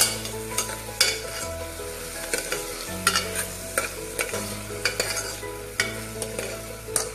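A steel ladle stirring and scraping rice and diced vegetables frying in ghee in a pressure cooker, with a sizzle and irregular scrapes against the pot. Soft background music with slow, even chord changes plays underneath.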